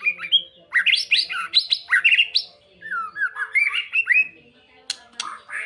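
White-rumped shama (murai batu) singing: fast runs of sharp, downward-sweeping notes, then a lower, slurred warbling phrase about three seconds in, and a few sharp clicking notes near the end.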